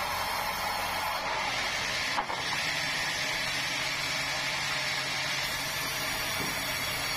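Sawmill machinery running steadily with a constant hum and hiss, and one short knock about two seconds in.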